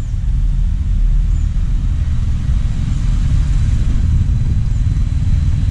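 Steady low rumble of wind buffeting the microphone of a head-worn camera. No other clear sound stands out.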